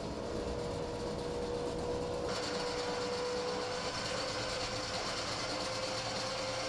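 Boat engine running steadily: a low droning hum with a constant whine above it. About two seconds in, the background suddenly becomes more hissy.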